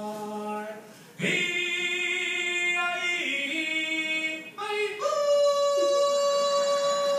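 Voices singing long held notes together a cappella, starting loudly about a second in and shifting pitch partway through; after a short break, one strong high note is held steadily to the end.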